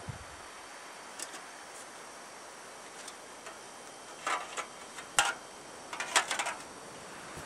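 A small metal pot set down on an alcohol stove with a soft knock, then a scattering of light metallic clicks and clinks as the cookware and a metal windscreen are handled, the busiest about four to six and a half seconds in. A steady faint hiss lies underneath.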